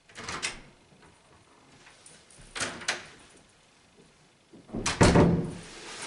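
Hotel room door being unlocked and opened, with sharp latch and handle clicks near the start and again around three seconds in, then the door swinging shut with a loud thud about five seconds in.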